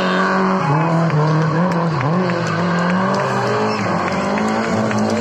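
Rally car's engine running hard under throttle, its revs dipping and rising several times as it slides sideways through a corner, with tyre squeal.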